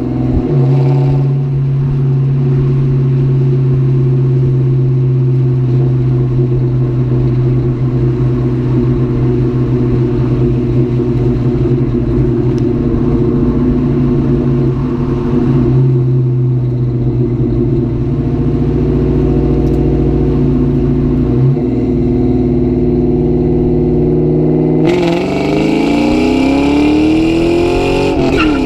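2004 Mustang GT's V8 engine running under way, holding steady revs for a long stretch. About three-quarters through it accelerates, its pitch climbing for a few seconds, then drops sharply at a gear change near the end.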